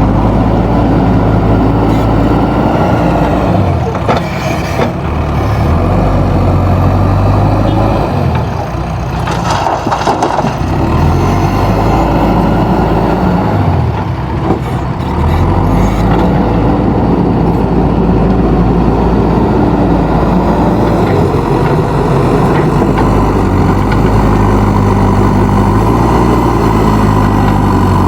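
JCB backhoe loader's diesel engine running loud and steady under hydraulic load, its pitch dipping and rising again a few times as the machine works, with a few short knocks.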